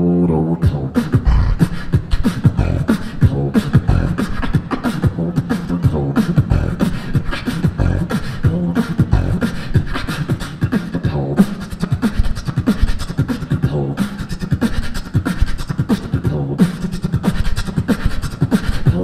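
Solo beatboxing into a handheld microphone, amplified through the PA. A held, hummed bass tone breaks about a second in into a fast, dense run of vocal kick and snare hits, with a hummed bass line returning underneath at intervals.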